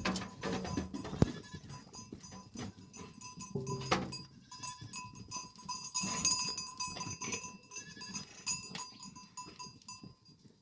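A flock of sheep and goats bleating on and off, with several calls overlapping. Small livestock bells ring in the background.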